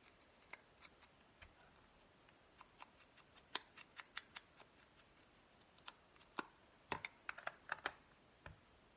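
Light, irregular taps and clicks of craft supplies being handled on a work table, bunched into a cluster in the middle and another near the end.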